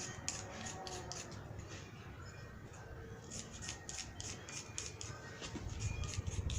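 A striker scraped again and again down a flint fire starter (pederneira), throwing sparks onto vaseline-soaked cotton: quick short scrapes at about four a second, in two runs with a short pause between them.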